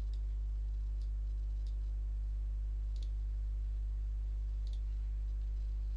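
A handful of computer mouse clicks, about five spread over six seconds, over a steady low hum.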